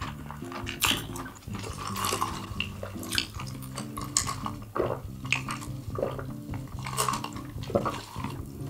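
Close-up eating sounds: cutlery clinking and scraping against dishes several times, with chewing.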